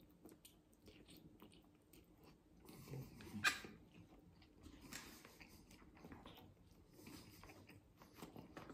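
Quiet chewing and eating of cup ramen noodles, with soft clicks of wooden chopsticks stirring in the paper cup. A louder short sharp sound about three and a half seconds in.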